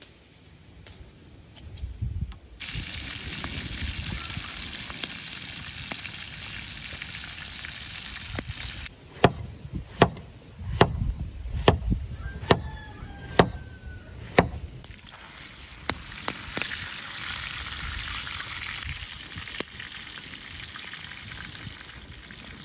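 Oil sizzling steadily as a whole fish fries in a flat pan over a wood fire. Midway, about eight sharp knocks of a cleaver chopping peeled zucchini into slices on a wooden board.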